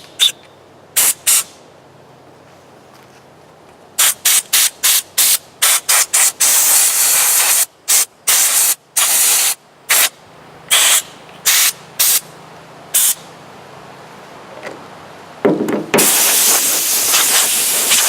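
Compressed-air blow gun fired in many short bursts of hiss, with a couple of longer blasts, blowing debris out of a chainsaw.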